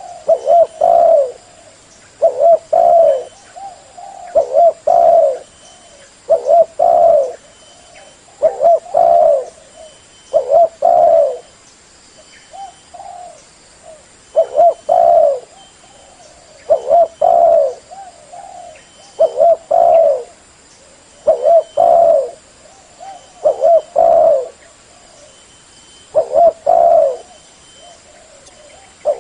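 Spotted dove cooing loudly and repeatedly: low, hoarse coo phrases of two or three notes, one about every two seconds.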